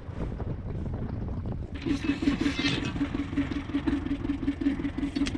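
Wind rumbling on the microphone, then about two seconds in a fishing boat's engine comes in, running with a steady pulsing low note over a rushing hiss.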